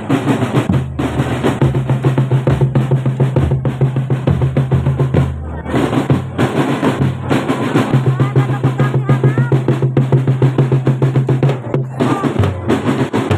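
Marching drum band playing: snare and bass drums beating a fast, driving rhythm with rolls, broken by a few short pauses.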